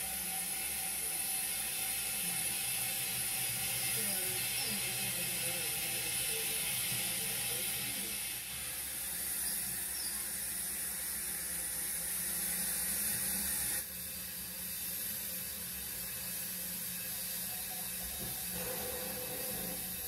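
Motor and gearing of a 0 gauge model locomotive whirring as it creeps along the track, under a steady hiss that cuts off suddenly about 14 seconds in.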